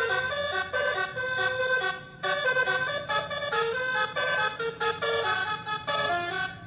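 Basuri telolet multi-tone horn module playing a preset tune: a quick run of horn notes stepping up and down in pitch several times a second, with short breaks about two seconds in and near the end.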